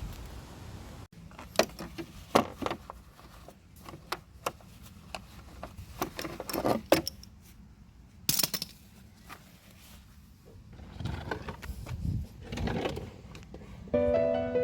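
Scattered metallic clinks, knocks and scrapes of hand tools such as mole grips being handled while working the oil filter off. Background music comes in near the end.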